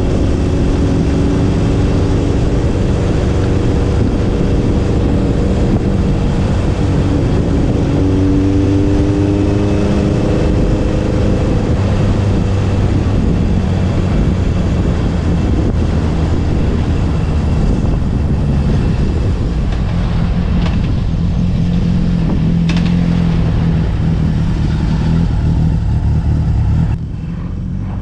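Honda CB750 K0's inline-four engine running at speed through a Delkevic stainless 4-into-1 megaphone exhaust, over a rush of wind and road noise. The pitch climbs around eight seconds in as the bike accelerates, then holds steady, and the sound drops away sharply near the end.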